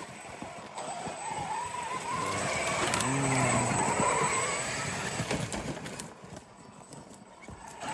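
Traxxas X-Maxx RC monster truck driving over rough ground: its brushless electric motor whines, rising and falling in pitch with the throttle, over the rattle of tyres and drivetrain. It is loudest in the middle and eases off near the end.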